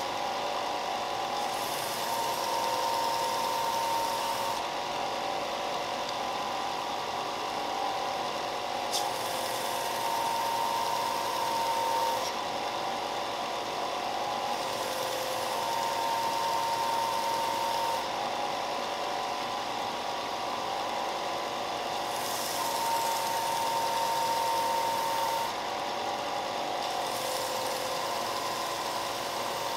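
Shop Fox benchtop belt sander running steadily, with about five passes of a few seconds each where a hiss rises on top as the edges of wooden coasters are pressed against the moving sanding belt.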